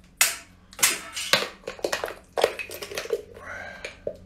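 Chunks of chili-marinated shellfish tipped from a plastic jar onto a ceramic plate, landing in a series of irregular knocks and clatters.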